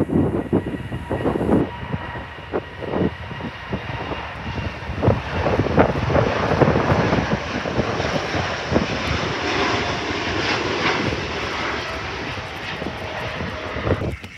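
Jet airliner taking off, its engines' noise building to a steady loud rumble as it lifts off and climbs away. Wind buffets the microphone in gusts.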